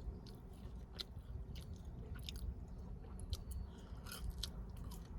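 A person chewing French fries with ketchup close to the microphone: quiet, irregular wet mouth clicks and smacks.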